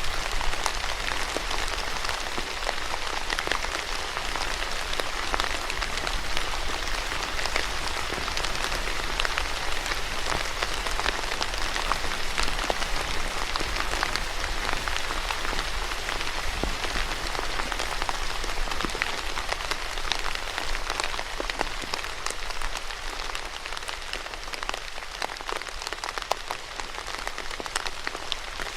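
Steady rain falling, an even rushing hiss with many sharp individual drop hits scattered through it.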